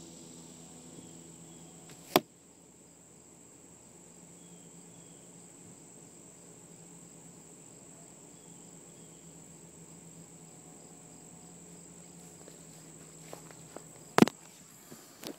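A wooden arrow shot from a longbow strikes a foam board target with a single sharp hit about two seconds in. A second sharp knock comes near the end. Insects keep up a steady high buzz throughout.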